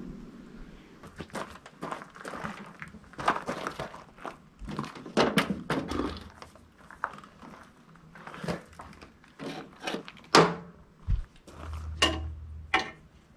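Irregular knocks and clunks of steel solar-panel mounting brackets and bolts being handled and shifted on a steel roof. The sharpest knock comes about ten seconds in, and there are a couple of ringing metal clanks near the end.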